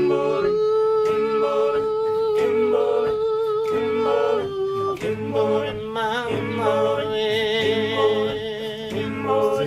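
A male vocal group singing a cappella in harmony, holding long chords.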